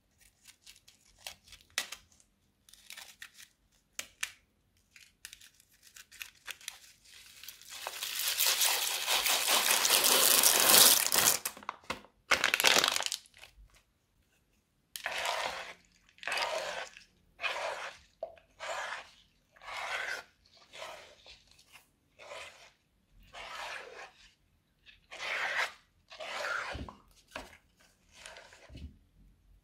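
Beads pattering out of a plastic piping bag into a wet glue mixture, with a loud, sustained crinkling crackle about 8 to 12 seconds in. From about halfway through, a spatula stirs the wet slime mixture in a wooden bowl in strokes about one a second.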